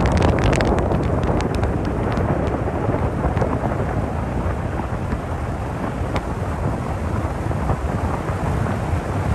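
Steady low rumble of a car driving on the highway: tyre and road noise with wind, heard from inside the car. A few light crackles in the first couple of seconds.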